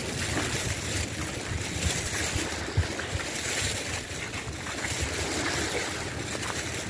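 Wind buffeting the microphone over the steady wash of surf on the shore.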